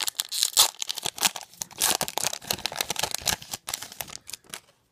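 Foil Pokémon TCG booster pack wrapper being ripped open by hand and crinkled: a dense run of sharp crackling rips and rustles that dies away near the end.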